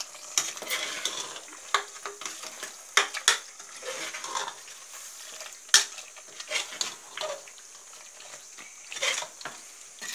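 A metal spoon stirring chicken masala in an aluminium pressure cooker, scraping and clinking against the pot at irregular intervals, over a steady sizzle of the food frying.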